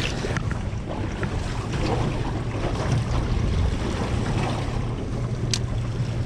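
Wind buffeting the microphone and sea water slapping against a small fishing boat or kayak, with a sharp click near the end.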